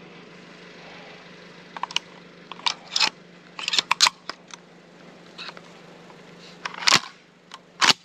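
Handling noise from a pump-action shotgun held in the hands: a scatter of short clicks and rustles, then two louder knocks about a second apart near the end, over a steady low hum.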